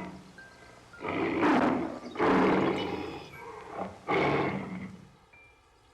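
Tiger roaring three times, each roar rough and about a second long.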